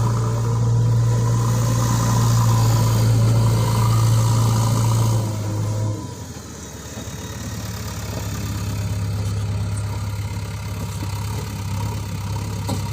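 Toy JCB backhoe loader's built-in engine sound effect: a steady low engine hum that drops sharply in level about six seconds in, then carries on quieter.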